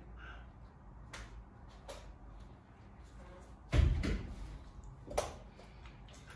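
A single heavy thud on a closed wooden interior door a little under four seconds in, followed about a second and a half later by a sharp click, with a few faint small clicks before.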